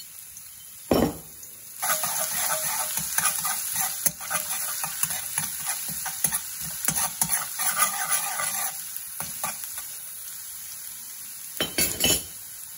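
Crushed garlic sizzling in hot vegetable oil in a wok while a metal spoon stirs it, clicking and scraping against the pan. A sharp knock comes about a second in, and the sizzle is strongest up to about nine seconds in, then eases.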